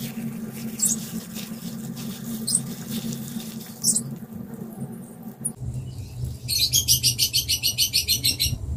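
Honeycomb being squeezed by hand in a plastic glove to press out the honey, with a few soft crackles over a steady low hum. About two-thirds of the way in, a rapid chirping trill of about eight chirps a second runs for about two seconds and is the loudest sound.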